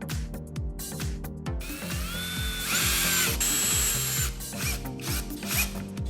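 Small power-tool motor whining for about two and a half seconds, its pitch rising as it spins up, over background music with a steady beat.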